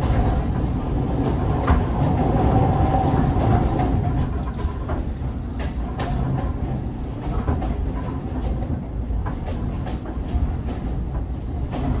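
Passenger train carriage running on the rails, heard from inside: a steady low rumble with scattered clicks and knocks as the wheels pass over rail joints.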